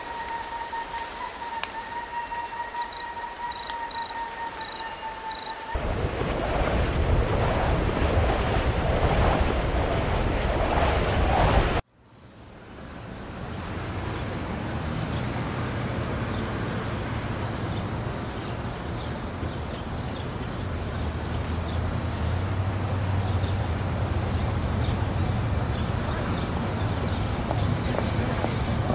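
Outdoor background ambience in three stretches. First a steady whistling tone with quick, repeated high chirps. Then a louder rushing noise. After an abrupt cut, a steady hiss with a low rumble.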